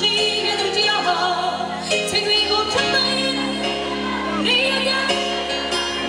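A woman singing live into a microphone over a pop band with keyboard and electric guitar, holding long notes over sustained chords that change about two seconds in.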